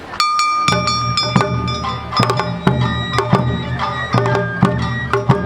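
Awa Odori ensemble music starting up about a quarter second in with a ringing metallic strike. Low drumming joins, then rapid sharp metallic clicks and a pitched melody carry the brisk dance rhythm.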